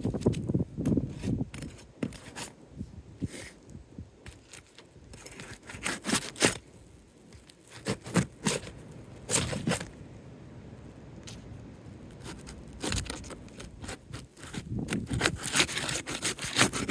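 Asphalt roof shingles being pried apart and unsealed: bursts of scraping and crackling tearing, broken by short quieter pauses.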